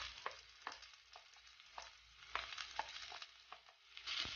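Sliced onions frying in hot coconut oil in a clay pot: a faint sizzle with scattered small crackles, and a spatula stirring them. The sizzle grows louder about four seconds in as they are stirred.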